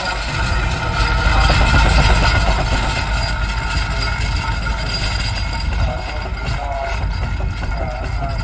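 Steam traction engine running as it hauls a trailer, a steady low mechanical rumble.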